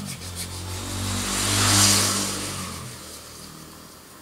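A motor vehicle passing by, its engine and road noise rising to a peak about two seconds in and then fading away.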